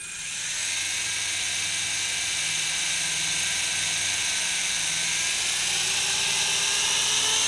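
Syma S111G toy RC helicopter's small electric motors spinning its coaxial rotors while it sits on the ground: a steady high-pitched whir that edges up in pitch near the end.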